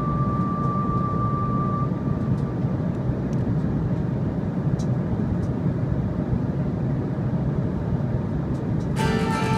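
Steady cabin noise inside an Embraer regional jet in cruise: a constant roar of turbofan engines and rushing air. A held music note fades out in the first two seconds, and background music starts again near the end.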